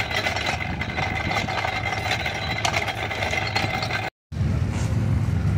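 An engine running steadily, a low hum with a faint steady whine and small clicks over it. The sound drops out completely for a moment about four seconds in, then the engine hum carries on.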